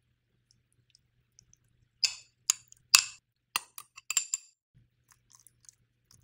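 A quick run of about nine sharp clicks and clinks of kitchen utensils against dishware, some ringing briefly, starting about two seconds in and stopping after two and a half seconds.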